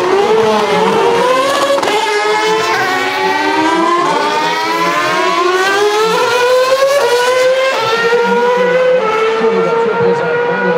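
Formula One cars' 2.4-litre V8 engines running loud at high revs as they accelerate past. The pitch climbs steadily and drops back at each upshift, several times over.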